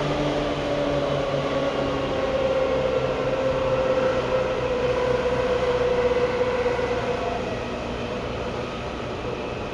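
Seibu 2000 series electric train running. Its traction motors and gearing give a steady whine that sinks slightly in pitch over the first seven seconds, over a continuous rumble. The sound eases a little near the end.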